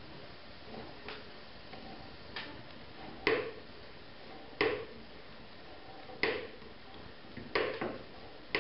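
Sharp metallic clicks, five of them about every second and a half from about three seconds in, as a steel hook is hand-turned into an overhead wooden joist.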